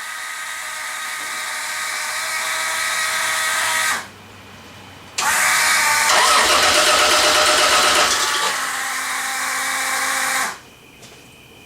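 A sand rail's Chevy 3.1L V6 being cranked on its starter in two long attempts, about four and five seconds, with a short pause between them. It does not settle into running right after the new sensors and computer were fitted.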